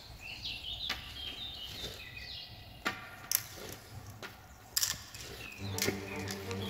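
Birds chirping in the background, and a handful of sharp metallic clicks as a silver chain is handled and laid down on the table. Music comes back in near the end.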